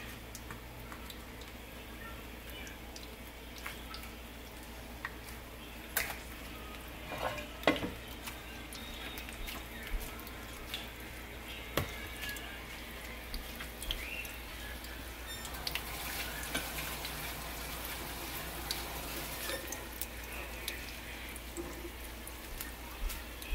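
Egg-battered green bean bundles shallow-frying in hot oil in a skillet: a steady sizzle with irregular sharp pops and spits. The hiss grows denser in the second half.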